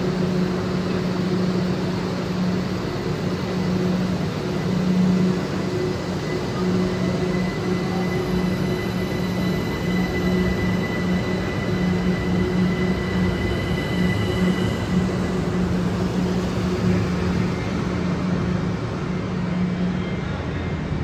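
Southern Class 377 electric multiple unit pulling out of the platform: a steady low hum with a rushing noise, and a faint high electric whine from its traction equipment from about six to fifteen seconds in.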